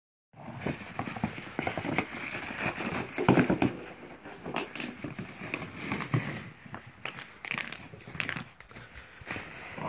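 A plastic snow sled scraping and crinkling over crusty snow as a small dog bites and drags it, with irregular crunching throughout.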